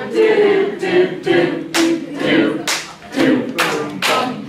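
Several voices singing a tune together, with four sharp hand claps in the second half, roughly a second apart.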